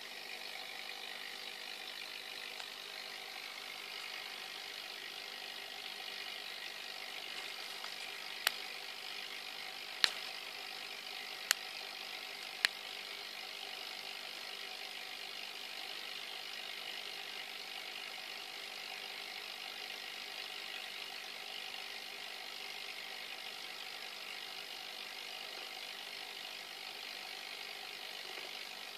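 Small motor humming steadily, with four sharp clicks a second or so apart a little before the middle.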